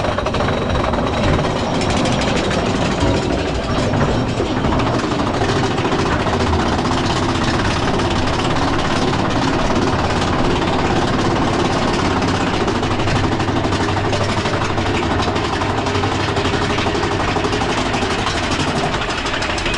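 Big Thunder Mountain Railroad mine train roller coaster running along its track: a steady rumble with a fast rattle from the cars' wheels on the rails and the couplings.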